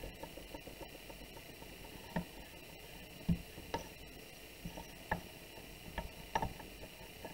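Clay being handled and rolled flat with a wooden dowel on a wooden board: a handful of soft, scattered knocks and taps over a faint steady hiss.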